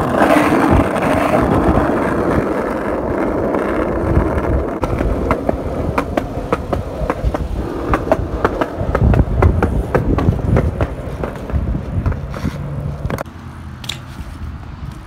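Skateboard rolling over pavement: a steady rumble of the wheels, broken by many sharp clicks. It dies down about thirteen seconds in.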